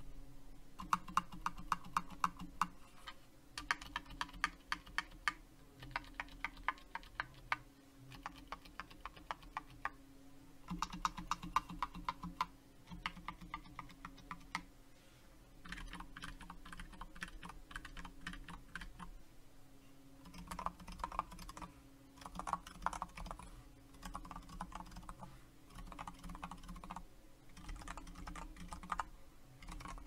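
Typing on a Mysterium TKL mechanical keyboard with lubed 78g Zilent V2 silent tactile switches on an FR4 plate with IMSTO keycaps: quick runs of soft, muted keystrokes in bursts of a few seconds, broken by short pauses.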